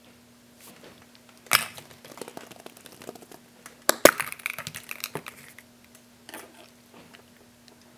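Hollow plastic surprise-egg capsules clacking as they are handled, with a sharp crack about four seconds in as a blue plastic egg is snapped open, followed by a rattle of small clicks.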